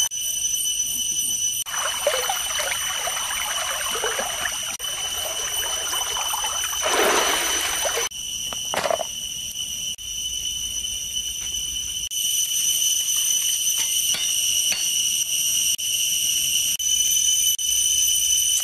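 Steady high-pitched insect chorus throughout, with water splashing and trickling at intervals: a longer spell a couple of seconds in and a louder splash about seven seconds in.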